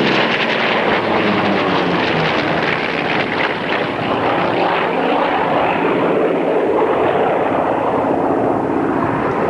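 F4U Corsair's Pratt & Whitney R-2800 18-cylinder radial engine running at high power on a display pass: a loud propeller drone whose pitch bends up and down as the plane passes.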